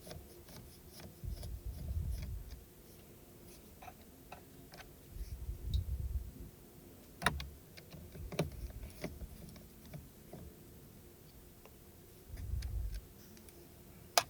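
Small screws being turned out with a hex screwdriver: scattered light clicks and ticks, the sharpest about halfway through, with a few dull low rumbles of hands handling the parts.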